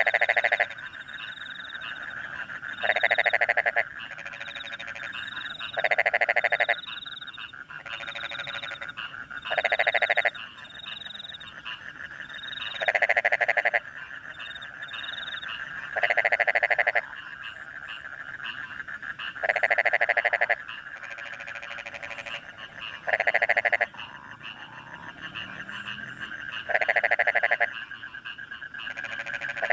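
Rice-paddy frogs croaking after rain: a loud call of about a second repeats roughly every three seconds, over a steady chorus of frogs and crickets with short high chirps in between.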